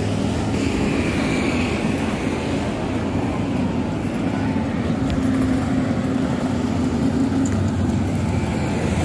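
Road traffic: motorbike and scooter engines and cars running steadily on a busy street, with an even low engine hum.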